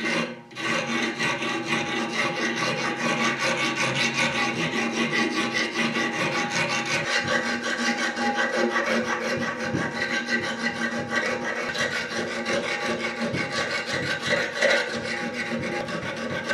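A small steel file rasping in quick back-and-forth strokes on a forged steel cross clamped in a bench vise, with steady ringing tones under the strokes. There is a brief break just after the start, and the filing stops suddenly at the end.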